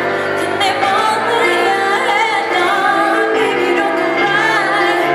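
A woman singing over backing music, holding notes that waver in pitch.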